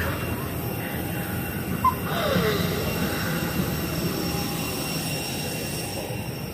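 Steady rushing drone of a parked airliner's air-conditioning and engine noise at the boarding door, with a sharp click about two seconds in followed by a brief falling squeak.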